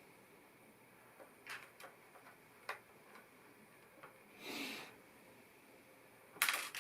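Faint, scattered clicks and rustles of LEGO pieces being handled: a few sharp ticks in the first three seconds, a soft rustle about four and a half seconds in, and a louder rustle near the end.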